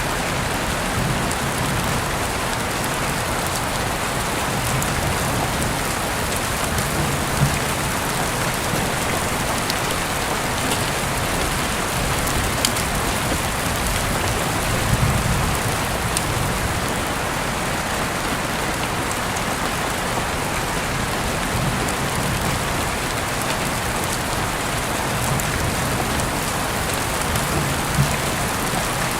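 Steady rain falling, a constant even hiss, with a few sharp clicks and a low rumble that swells about halfway through.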